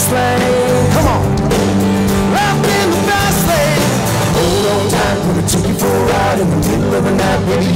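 Live country-rock band playing: drums, bass guitar, and electric and acoustic guitars, with a lead melody that bends up and down in pitch.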